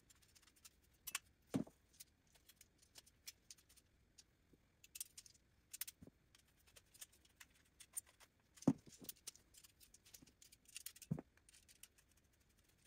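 Scattered light clicks and metallic clinks of small screws, standoffs and aluminium VEX C-channel being handled and screwed together. The louder clicks come about one and a half, nine and eleven seconds in.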